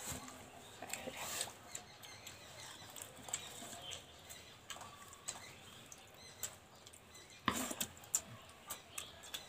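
Quiet eating by hand: scattered small clicks and smacks of chewing and of fingers working rice and paratha on plates, a little busier near the end.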